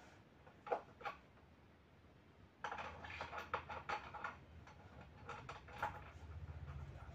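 Small clicks and metallic rattles of a nut and washer being handled and fitted onto the wheel axle of a plastic toy tractor trolley. A low, fast-pulsing buzz comes in near the end.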